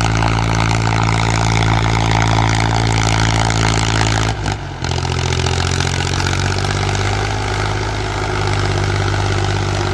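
Powertrac 445 tractor's diesel engine running steadily at high revs under load, pulling an 18-disc harrow through ploughed soil. About halfway through, the sound dips briefly and the engine note shifts slightly, then carries on steadily.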